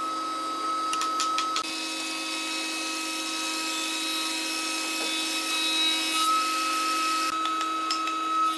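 Spindle moulder running with a steady motor tone, its cutter shaping a length of wood that is fed past it from about a second and a half in until about seven seconds in.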